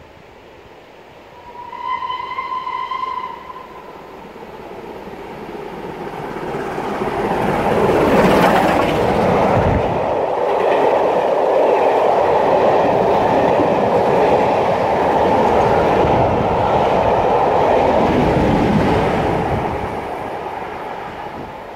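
A steam locomotive's whistle sounds once for about a second and a half, then the steam-hauled passenger train approaches and passes at speed: a long loud rush of wheels on rail with clickety-clack that fades near the end as the train goes by.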